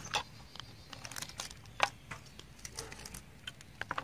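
Scattered sharp plastic clicks and taps as a string trimmer's line-spool head is handled and taken apart by hand, the loudest click a little under two seconds in.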